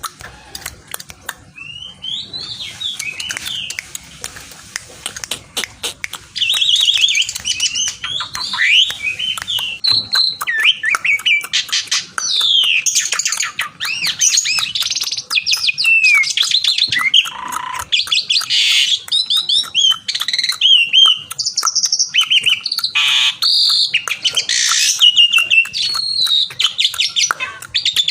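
Asian pied starling singing: a long, varied run of rising and falling whistles mixed with fast chattering notes and clicks, getting louder about six seconds in.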